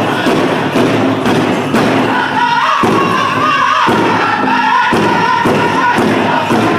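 Powwow drum group: a big drum struck in unison at a steady beat of about two strokes a second, with the singers' high, sliding song over it, strongest in the middle.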